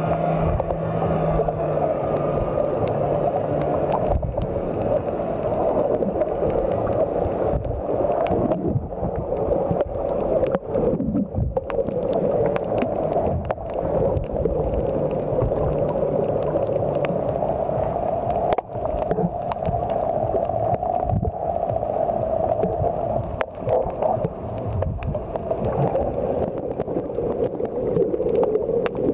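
Muffled underwater noise picked up by a camera just below the sea surface: continuous water gurgling and sloshing, with scattered small clicks.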